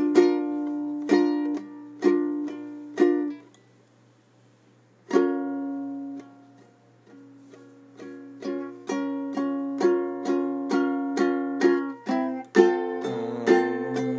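Music: a plucked string instrument playing single ringing notes, about one a second at first. After a pause of almost two seconds the notes come back and quicken, with lower notes joining near the end.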